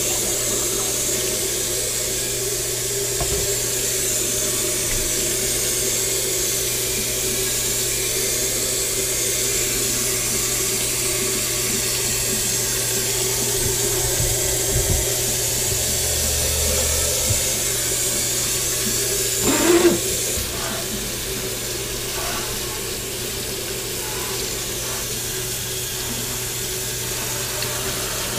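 Kitchen tap running water into a stainless steel sink while hands rinse and wipe the basin, a steady splashing hiss. A brief louder knock about two-thirds of the way through, after which the hiss turns a little softer.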